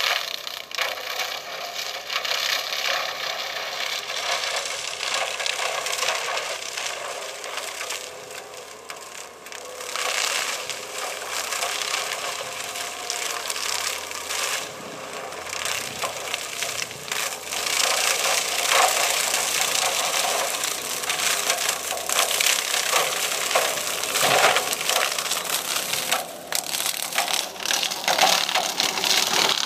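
Cat 299C compact track loader with a Davco mulching head chewing through willow brush, the stems cracking and snapping under the running engine. It grows louder in the second half as the machine comes close.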